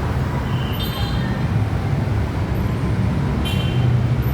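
Bus engine running with a steady low rumble. Two brief, faint high-pitched chirps come through, about half a second and three and a half seconds in.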